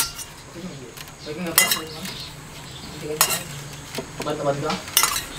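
Metal spoon clinking against a stainless steel saucepan while sauce is spooned out to baste a roast duck: three sharp clinks, roughly one every second and a half.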